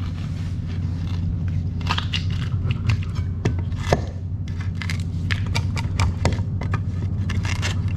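A bolted deck fitting being pried up off its deck, with irregular clicks, knocks and crackling as the hardened 5200 sealant lets go, over a steady low hum.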